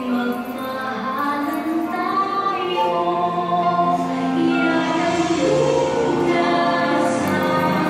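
Choir singing long, held notes, growing gradually louder.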